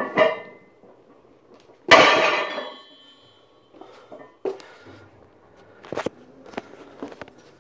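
A loaded trap bar carrying about 312 lb of cast-iron plates set down on the floor about two seconds in: a heavy clank with the plates ringing briefly. A shorter knock comes right at the start, and a few lighter knocks and clicks follow.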